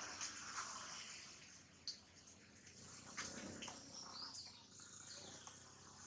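Faint forest ambience: a rushing noise fades out over the first two seconds, then soft clicks and rustles with a brief high chirp about four seconds in.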